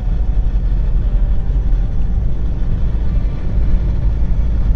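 Volkswagen Polo cruising at highway speed, heard from inside the cabin: a steady low rumble of engine and tyres on the road, with a fainter hiss above it.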